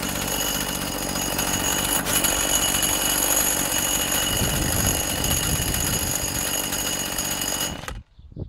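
McCulloch Virginia MH542P petrol hedge trimmer's small two-stroke engine running steadily with a high whine, then cutting off abruptly near the end as its stop switch is pressed.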